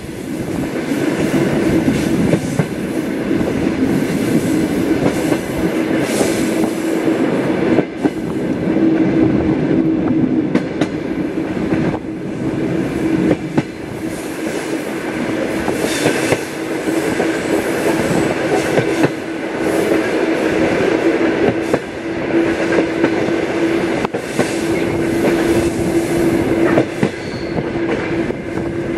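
Commuter train carriage running along the track, heard from its window: a steady rumble with the wheels clicking over rail joints, and a steady tone that comes and goes.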